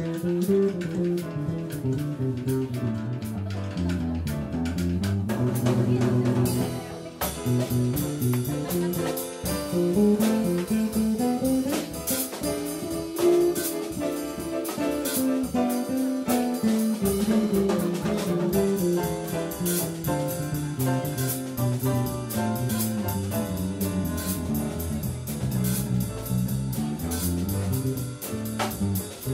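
Live Latin jazz band playing, with a moving bass line, chords and a drum kit; the drums and cymbals come in fully about seven seconds in.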